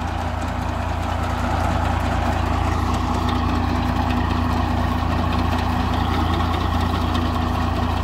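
Tractor engine running steadily as it pulls a Sunking potato digger through the field, with the digger working potatoes and soil out of the row.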